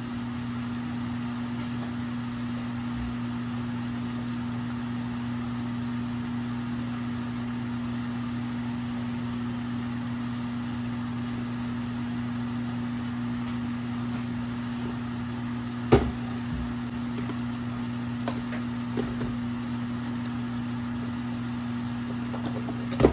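A steady low electrical hum from a running kitchen appliance, with one sharp knock about two-thirds of the way through and a couple of faint clicks after it.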